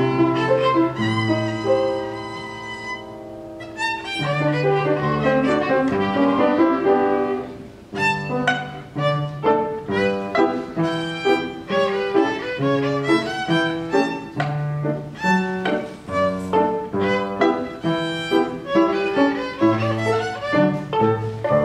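Violin played with piano accompaniment: a few long held notes at first, then from about eight seconds in a lively run of short, separated notes.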